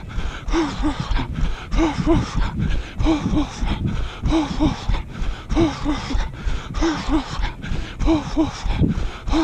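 A runner's rhythmic, voiced panting while jogging, the breaths coming in short pairs about once a second. Under it run steady footfalls and a low rumble of wind on the body-worn microphone.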